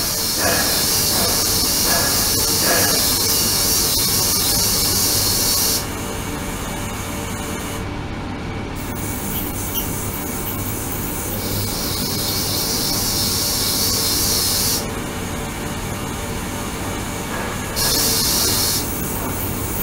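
Ultrasonic water tank running: a steady hissing, churning water noise. A higher, brighter hiss drops away about six seconds in, comes back for a few seconds in the middle, and returns briefly near the end, as if the oscillation were being switched or swept.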